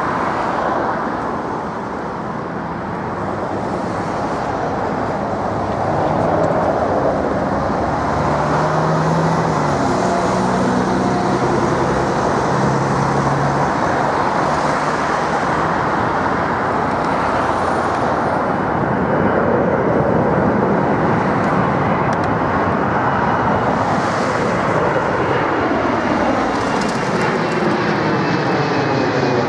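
Jet airliners on final approach: the steady rumble and roar of a large four-engined jet's engines, then a twin-engined jet passing low overhead near the end, its engine whine slowly falling in pitch as it goes over.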